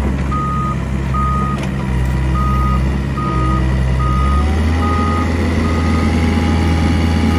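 Volvo wheeled excavator moving on gravel: its diesel engine running under a steady beeping alarm, about one beep a second. About four and a half seconds in the engine note rises and the beeps grow fainter.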